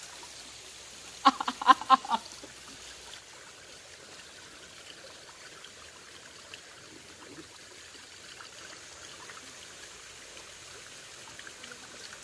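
Shallow stream water trickling and flowing steadily over rocks, with a brief loud shout about a second in.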